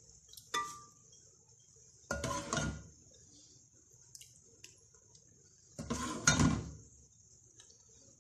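Metal spoon clinking and scraping against a steel pot while chicken gravy is spooned over the rice. A light ringing clink comes about half a second in, then two longer scrapes about two and six seconds in, the second the loudest, with a few faint ticks between.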